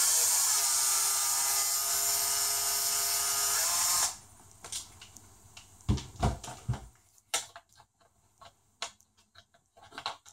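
Cordless electric screwdriver running steadily for about four seconds, driving a skid-plate screw into the RC truck's chassis, then stopping suddenly. A few knocks and small clicks of parts being handled follow.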